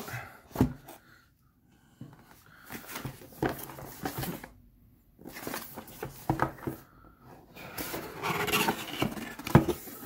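Cardboard box being handled and its lid opened: rustling, scraping and light knocks against a wooden table, with a sharp knock near the end.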